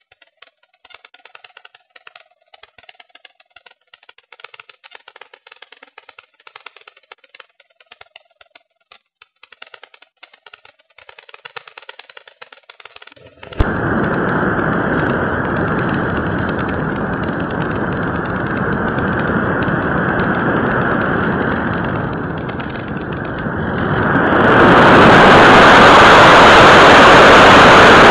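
Pelikan Swift electric model glider in flight, heard through its onboard keychain camera: faint crackling at first, then a loud rushing noise from the motor and airflow comes on suddenly about halfway through. It grows louder still a few seconds before the end as the model drops low over the ground at speed.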